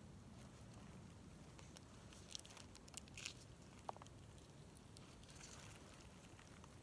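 Near silence over a low steady hum. A few faint crackles come near the middle, followed by one very short high chirp.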